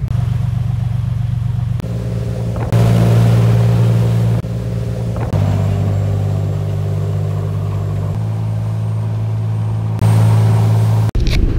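Fishing charter boat's engine droning steadily under way, heard as a string of short clips that each cut in abruptly at a slightly different pitch and loudness, with a hiss of wind and wake water in some of them.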